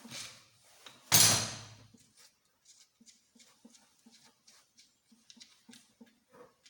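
Metal engine parts and tools being handled during disassembly: a loud clank about a second in that dies away over about a second, then a run of light taps and clicks.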